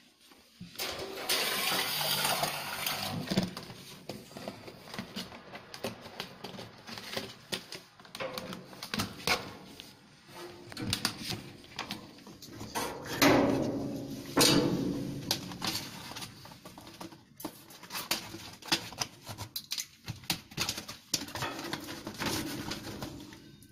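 Flexible aluminium foil duct being handled and pushed into place: irregular crinkling, rustling and small knocks, louder about two seconds in and again around thirteen to fifteen seconds in.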